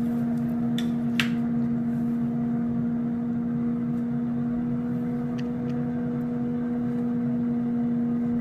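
Instant Pot Vortex Plus air fryer oven running at 400 degrees with its rotisserie basket turning: a steady humming drone from its convection fan and motor. Two light clicks come about a second in.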